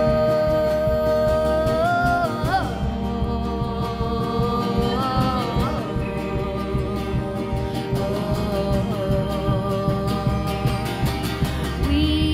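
Live indie-rock band playing: a female lead vocal sings long held notes over acoustic and electric guitars, bass and a drum kit.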